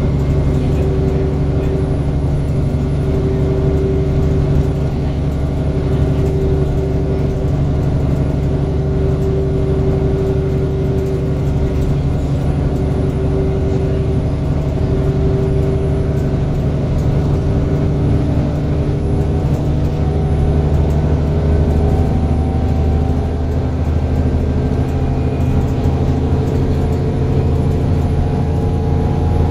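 Bus engine and drivetrain heard from inside the passenger saloon as the bus drives along: a steady low drone with a humming tone, its pitch shifting a little after about twenty seconds.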